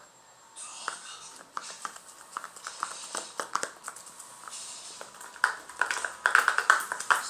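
Hands kneading and squeezing clicky slime, giving off irregular sharp clicks and crackling pops that grow denser and louder about five seconds in.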